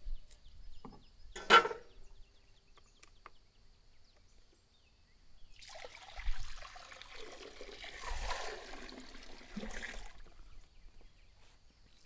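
A single sharp metal clank about a second and a half in, as the heavy cauldron lid is handled, then water poured from a plastic jug into a large cast-iron cauldron, splashing for about four seconds from halfway through.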